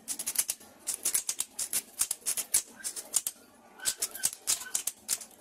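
Brake master cylinder being bench-bled by hand, its piston pushed in and released over and over with a screwdriver to force out trapped air: a quick, uneven run of short crisp clicks, several a second.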